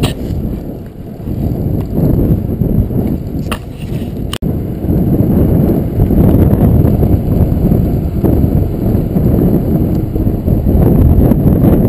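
Wind buffeting a GoPro Hero2's microphone, mixed with the rumble of full-suspension mountain bike tyres rolling on pavement, a low, steady roar that grows louder from about six seconds in. Two sharp clicks come around four seconds in.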